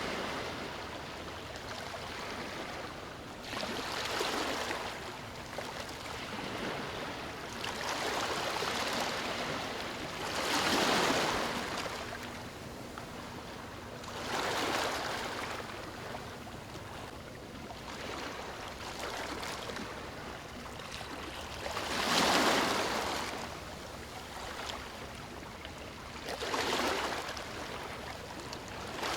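Ocean waves breaking and washing onto a shore: a swell of surf rises and falls every few seconds over a steady hiss of water.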